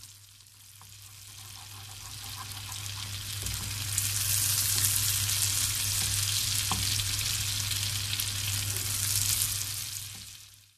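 Cheese omelette sizzling in butter in a non-stick frying pan: a soft, high-pitched frying hiss that builds over the first few seconds, holds steady, then fades out at the end, over a low steady hum.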